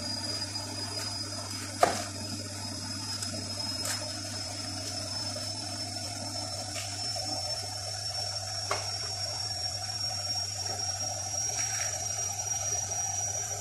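A red onion being peeled and cut on a plastic cutting board: a few sharp clicks and knocks, the loudest about two seconds in, over a steady background hum and hiss with a faint high whine that rises slowly.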